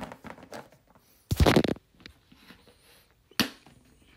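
Toys being handled and moved about by hand: scattered short scrapes and rustles, with a louder rustle about a second and a half in and a sharp knock or rustle near the end.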